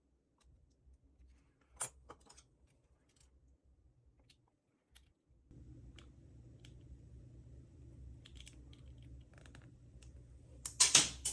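Faint clicks of small metal tools working a padlock's internals, then near the end a burst of sharp metallic clattering as a small lock part comes free and bounces about. A low steady hum comes in about halfway.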